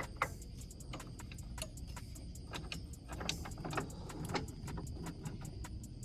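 Scattered light clicks and metallic clinks over a low steady rumble, with a faint fast ticking, about five a second, running through it.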